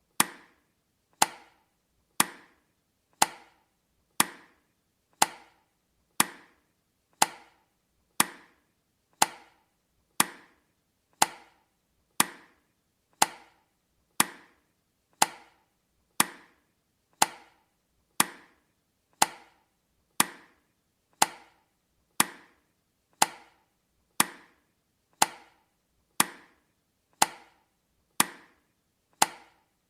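Countdown timer's ticking sound effect: one sharp, woody tick each second, evenly spaced.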